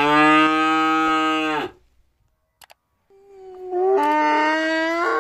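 A cow lowing in one long, steady moo that stops a little over a second and a half in. After a pause of over a second, a donkey starts braying, its call stepping up and down in pitch.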